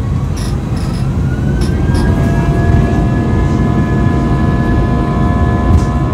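IAE V2500 turbofan engines of an Airbus A320 spooling up for takeoff, heard inside the cabin: a whine climbs in pitch over the first two seconds and then holds steady above a low rumble that grows louder.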